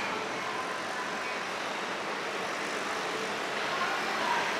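Steady rumble of a busy railway station: trains and city noise running together, with faint high tones drifting through.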